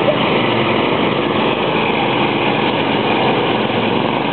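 Small garden tractor engine running loudly and steadily.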